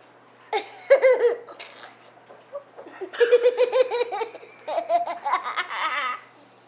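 Laughter in two high-pitched bouts, a short one about half a second in and a longer one starting about three seconds in, each broken into quick rhythmic pulses.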